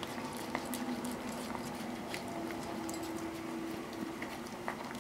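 A puppy licking and nosing around an empty plastic food container, its tongue making small wet smacks and clicks against the plastic as it hunts for the last traces of food. A steady low hum runs underneath.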